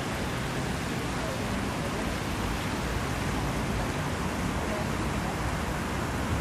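Steady outdoor background noise: an even hiss with a low rumble, like wind and distant traffic, with no distinct events.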